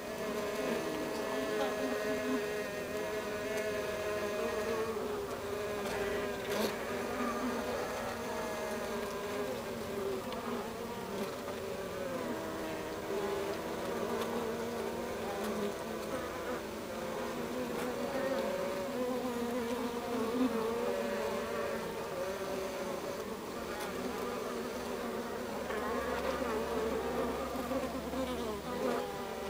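Honeybee colony humming inside the hive: the wingbeats of many workers blend into a steady drone of overlapping tones that waver slightly in pitch.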